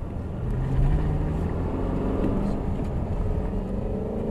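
Chevrolet Camaro ZL1's supercharged 6.2-litre V8, heard from inside the cabin, accelerating; its note rises about a second in and again near the end.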